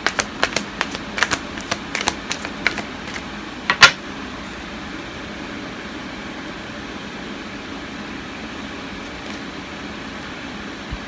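Cards being handled: a quick run of small taps and slaps, about three a second, ending in one louder snap about four seconds in. After that only a steady mechanical hum of a room fan remains.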